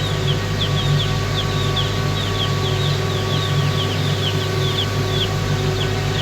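Many broiler chicks peeping, a dense chorus of short, high overlapping chirps, over a steady low machine hum.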